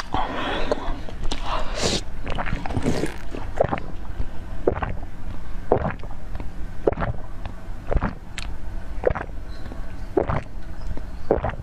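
Close-miked ASMR eating sounds of jelly or frozen treats: chewing with a string of sharp, wet mouth clicks, about one or two a second.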